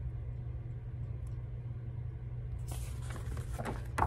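Steady low room hum. In the last second or so, light paper rustling and a soft knock as the paperback coloring book is lowered and set down.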